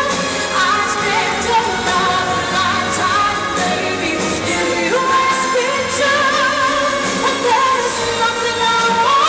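A woman singing a pop song live into a handheld microphone over band accompaniment, with long held notes sung with vibrato.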